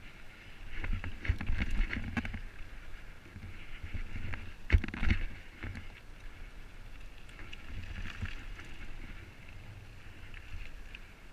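Mountain bike rolling over a gravel trail: tyres crunching and the bike rattling over the surface, with wind noise on the microphone. Several knocks from bumps, the loudest a sharp thump a little under five seconds in.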